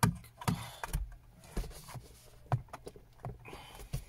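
Hard plastic clicks, knocks and rattles as the connector is worked free of a BMW F30 overhead dome light unit. The clicks come irregularly, about half a second to a second apart, with a short rustle near the end.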